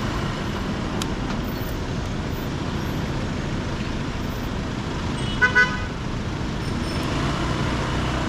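Steady noise of congested road traffic, with a car horn giving two short toots about five and a half seconds in.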